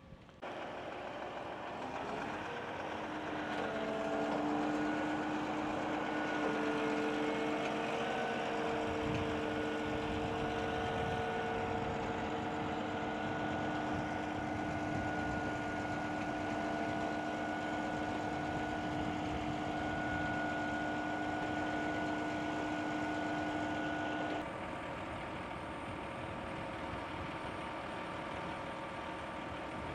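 Heavy truck diesel engine running steadily, with several whining tones that rise slightly in pitch over the first few seconds. About 24 seconds in the sound changes abruptly to a quieter steady running.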